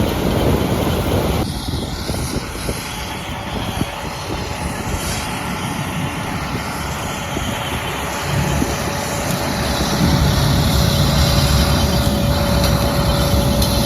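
John Deere combine harvester running steadily while harvesting sunflowers, with a thin steady whine coming in about two-thirds of the way through.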